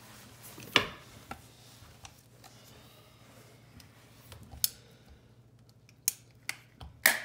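Manual caulking gun squeezed to push out silicone: a series of sharp metallic clicks from its trigger and ratchet rod, at irregular gaps of about a second or more, the loudest about a second in and near the end.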